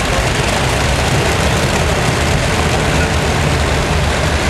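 Multi-engine modified pulling tractor running at a steady idle as it rolls slowly: a loud, even low rumble with heavy noise spread across the range.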